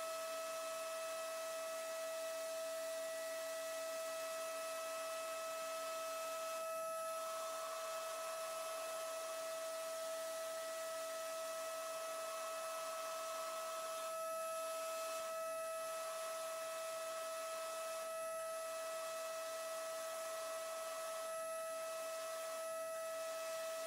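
High-speed CNC milling spindle running a 1 mm DATRON double-flute end mill as it engraves metal: a steady high whine of several constant tones over a hiss. The hiss dips briefly a few times.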